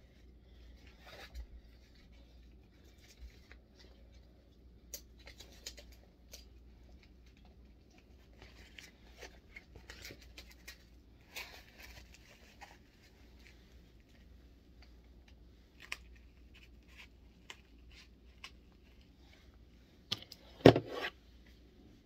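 Blood pressure cuff being wrapped around an upper arm and fastened: quiet rustling and scratchy rasping of fabric and Velcro, with scattered small clicks and taps. Near the end, a sharp knock twice, the loudest sound, as a stethoscope is handled.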